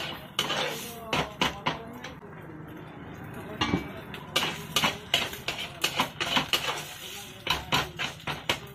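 Metal spatula scraping and knocking against a blackened wok while scrambling eggs, in quick irregular strokes, with a sparser stretch about two seconds in before the stirring picks up again.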